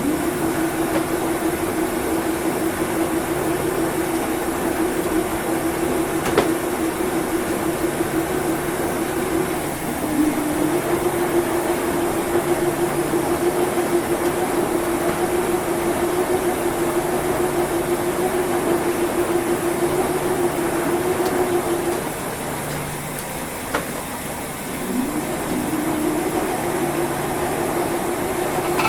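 Washing machine running a wash cycle, its motor humming at a steady pitch as the drum turns. The hum dips and winds back up about ten seconds in, cuts out for a few seconds later on, then winds up again near the end, with a couple of single knocks along the way.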